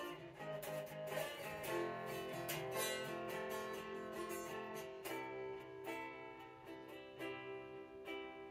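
Unplugged electric guitar being picked and strummed: a run of plucked notes and chords.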